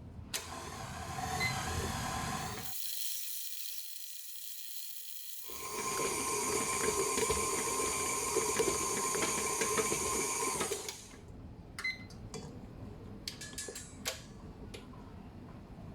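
Electric mixer motor running steadily while it kneads bread dough, then stopping about eleven seconds in, followed by a few light clicks.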